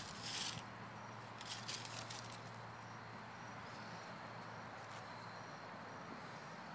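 Brief rustling of footsteps in grass and fallen leaves in the first couple of seconds, then faint insects chirping: one high chirp repeated at an even pace.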